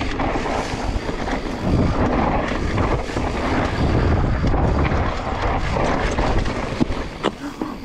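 Mountain bike running fast down a loose, dusty dirt trail: tyres churning and skidding through dry soil and the bike rattling, with wind rushing over the microphone. A couple of sharp knocks come near the end.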